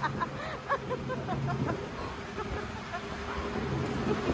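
Outrigger boat's (bangka's) engine running steadily, a low drone under faint passenger voices that fade out after the first second or so.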